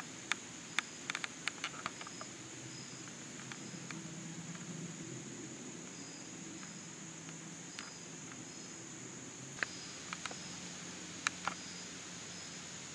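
Crickets trilling steadily, one high and constant, another giving a short chirp about every half second. Over it come scattered sharp crackles of dry leaf litter, a white-tailed doe stepping through fallen leaves: a cluster in the first two seconds and a few more around ten seconds in.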